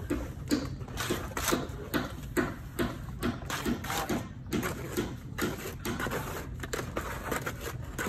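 Steel plastering trowel scraping and slapping wet cement mortar onto a brick wall and into the mortar bucket, in repeated strokes about two a second.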